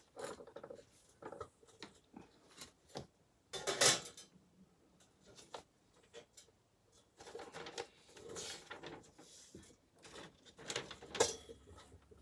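Scattered clicks, knocks and rustles of computer parts being handled and fitted into a PC case. The loudest knock comes about four seconds in, and another comes near the end.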